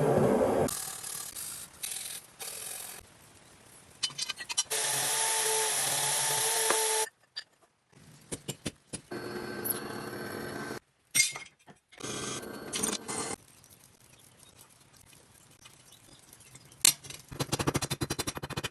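Bladesmithing workshop sounds in quick cuts: a steady hiss with a machine hum for about two seconds, then scattered clicks and taps with short silent gaps, and a few sharp knocks near the end.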